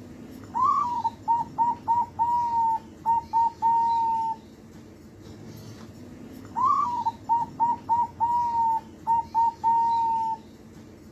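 Young zebra dove (perkutut) singing its cooing song twice, with a pause of about two seconds between. Each phrase opens with a rising, then falling note, runs into a quick string of short coos, and ends with a few longer held coos.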